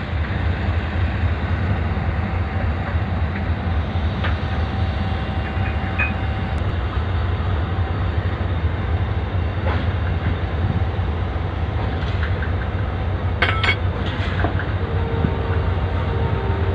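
Diesel locomotive engine running with a steady low drone as the locomotive rolls slowly along the track, with a few sharp metallic clinks from the wheels and rails.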